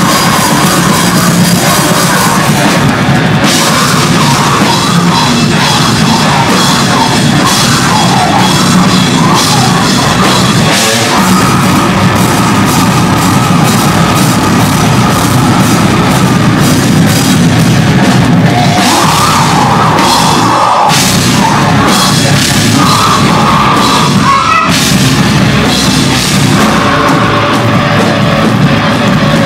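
Live sludge/deathcore metal band playing loud, with distorted electric guitars over a pounding drum kit, broken by a few brief stops.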